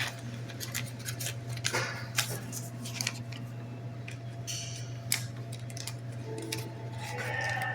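Scattered light clicks, taps and brief scrapes of hands working a vending machine, over a steady low hum.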